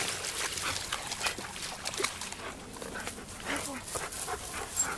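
Several German Shepherds jostling and scuffling together, with short whines among the rustle and clicks of their movement.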